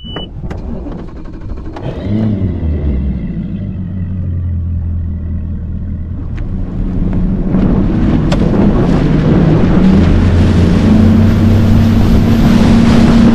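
Bass boat outboard motor running, then throttled up about seven and a half seconds in, its pitch climbing near the end as the boat gathers speed, with wind and water rush building. A short high beep sounds at the very start.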